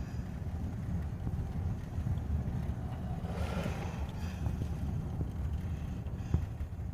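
Steady low rumble of a car driving, heard from inside the cabin, with a brief swell of hiss about three and a half seconds in.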